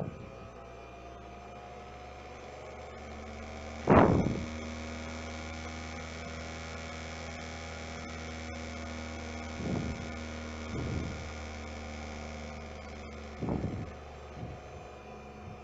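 The electric motor of a shaft balancing lab rig runs as a steady hum with a faint whine that rises slightly as the shaft speeds up from about 3,400 to 4,400 RPM. A loud short thump comes about four seconds in, and smaller thumps follow around ten seconds and near the end.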